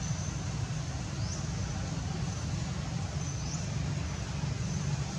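Steady outdoor background noise: a low rumble under a thin high-pitched tone that gives a short rising chirp about every two seconds.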